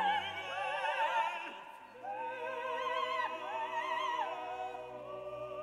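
Background music of opera-style singing with heavy vibrato, the voice holding long high notes, with a short break just before the middle.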